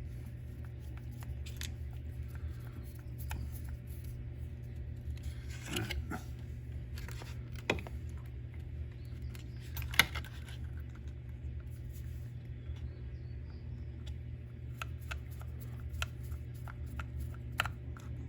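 Small clicks and scrapes of a screwdriver and plastic suspension parts being handled and screwed together on a Wltoys 144001 RC car, with a few sharper ticks, over a steady low hum.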